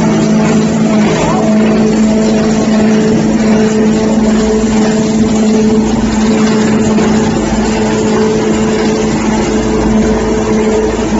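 Small hammer mill shredder running steadily at speed: a constant, loud mechanical hum with an even rushing noise over it.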